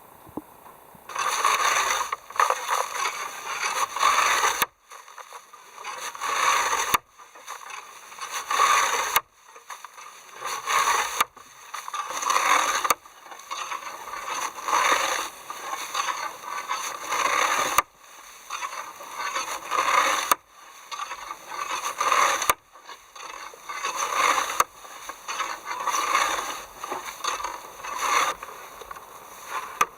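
Repeated rough scraping strokes, one after another, broken into short runs that stop and start abruptly.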